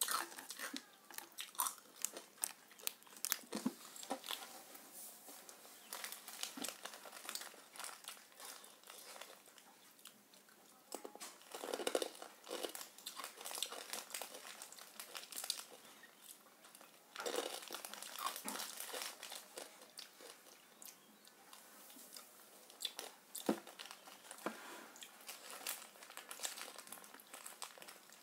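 Irregular crinkling and crackling made of many small sharp clicks, with a few louder clusters.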